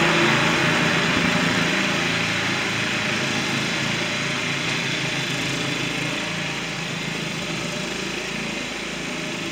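Two riding lawn mowers' small engines running as they drive off together, the sound fading steadily as they move away.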